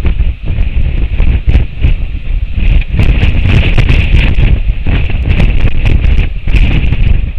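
Strong wind buffeting the microphone, a heavy rumble in uneven gusts with a steady hiss and frequent sharp pops.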